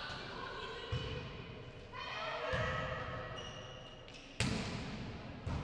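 Volleyball being struck during a rally: sharp hits of hand on ball ringing through a large gym hall, one about a second in, the loudest about four and a half seconds in, and another near the end.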